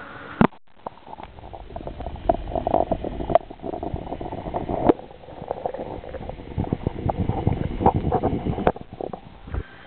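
Water sloshing and gurgling around a camera lowered below the surface: a muffled rumble full of small clicks and knocks. It starts after a sharp click and thins out near the end.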